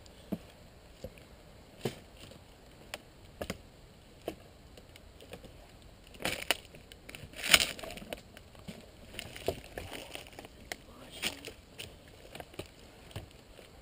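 Footsteps over broken boards and debris: irregular snaps, knocks and crunches of old wood underfoot, busiest and loudest about six to eight seconds in.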